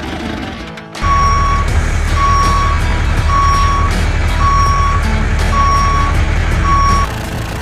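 Truck reversing alarm: six even, steady-pitched beeps, about one a second, over a steady low engine rumble. It starts abruptly about a second in and cuts off near the end.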